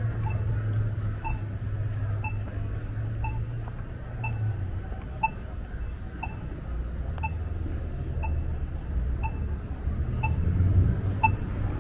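Pedestrian crossing signal's locator tone: a short electronic beep repeating evenly about twice a second, over the low rumble of idling street traffic.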